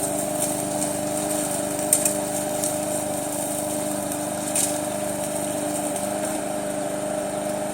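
Small gas push-mower engine on a remote-control mower running at a steady speed, with a couple of faint clicks.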